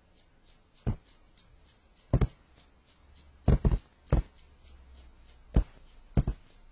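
About ten sharp taps at uneven intervals, several of them in quick pairs.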